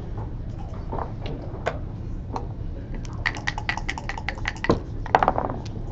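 Backgammon checkers clicking as they are set down on the board, then dice rattled quickly in a cup for about a second and a half and thrown onto the board, the loudest clatter, about five seconds in.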